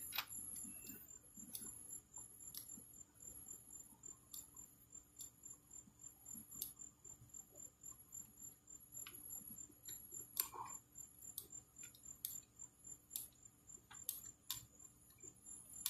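Faint, steady high-pitched trill of crickets, with soft ticks about once a second.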